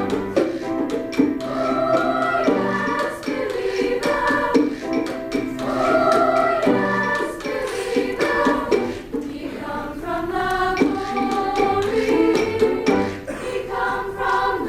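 Women's choir singing in harmony, several voices holding chords that change about every second.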